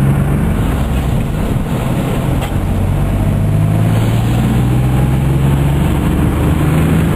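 A 1997 Geo Metro's small engine running steadily while driving, heard from inside the cabin, with tyres hissing on wet pavement.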